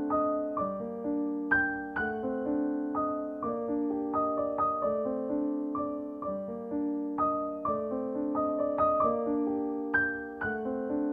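Background piano music: single notes struck about twice a second over held lower notes, each fading after it is played.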